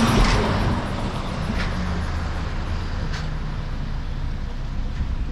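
Steady road noise of a car driving on a highway.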